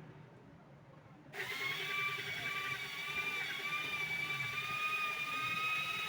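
A motor-driven machine starts up about a second in and runs with a steady high whine.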